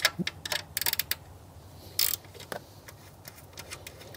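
A 10 mm ratchet clicking in quick runs as it backs off the nut on the alternator, with scattered small metal clicks and taps between runs.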